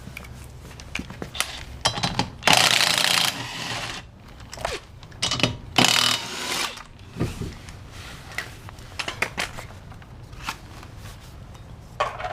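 Tool work at a car's rear wheel: scattered clicks and knocks, with two loud bursts of a power tool, the first lasting about a second and a half and the second, a few seconds later, shorter.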